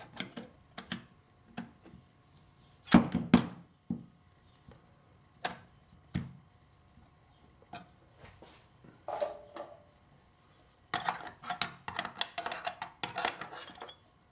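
Metal clinks, taps and scrapes as a steel divider plate is set into a grease-packed phonograph spring barrel, loudest about three seconds in. Near the end comes a quick run of clicks and scrapes as the plate is worked down with a metal rod.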